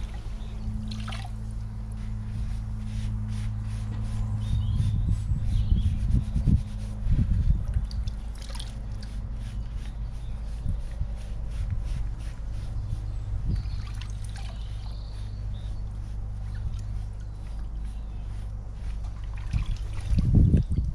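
Liquid dye trickling and sloshing in a plastic bucket as carpet pieces are dipped, squeezed and lifted out, with a steady low hum underneath. A few handling knocks come in the middle and a louder cluster near the end.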